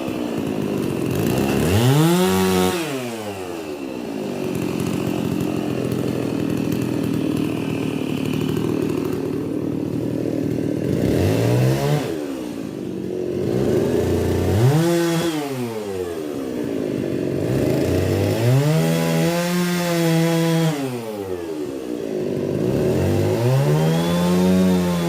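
Holzfforma G660 chainsaw, a large two-stroke clone of the Stihl MS 660, revving up and dropping back four times. Between the revs comes a long stretch of steady running under load, as when cutting wood.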